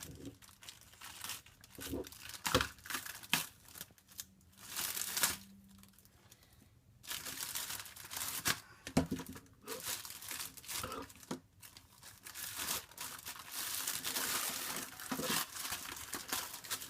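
Plastic packaging crinkling and tearing as a sealed magazine pack is opened by hand, in several bouts with short pauses between.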